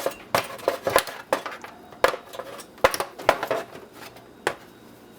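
Irregular sharp metal clinks and knocks as hand tools are handled against the dehumidifier's parts while the control switch is being taken off.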